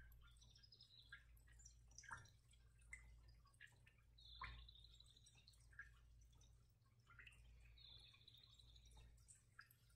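Near silence: quiet room tone with a steady low hum and scattered faint high-pitched chirps and plinks, a couple of them held for about a second.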